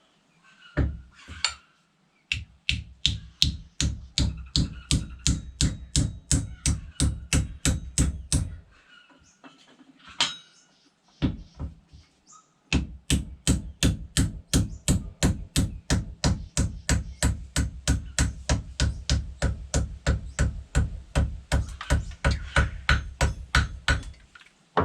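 Repeated hammer blows driving a new wooden handle home into the head of a block splitting maul, about three strikes a second in two long runs with a short pause near the middle.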